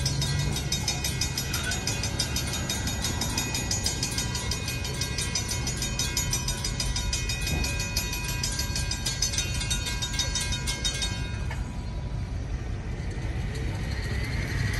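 Railroad grade-crossing warning bell ringing rapidly and steadily as the train's last cars pull away, then stopping suddenly about eleven seconds in. A steady low rumble from the departing train runs underneath.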